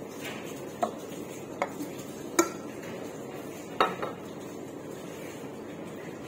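Metal bar cups and utensils knocking on a counter: four short, sharp clinks about a second apart, the last as a brass cup is set down.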